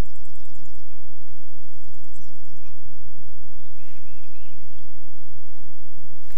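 Wind rumbling on the microphone, with birds chirping: a rapid high trill in the first second and a few short chirps about four seconds in.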